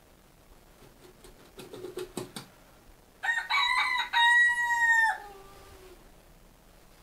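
A rooster crowing once, a cock-a-doodle-doo of about two seconds in several stepped notes that ends in a falling tail, played from a video through a room's speakers. A few short clicks and low notes come shortly before it.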